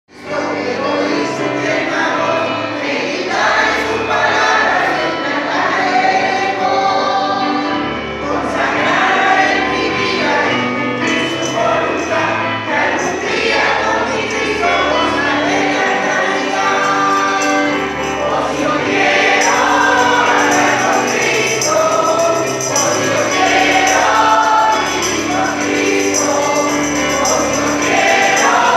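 A choir singing a Christian gospel song over instrumental backing with a pulsing bass line. A bright jingling percussion, like a tambourine, thickens about two-thirds of the way through.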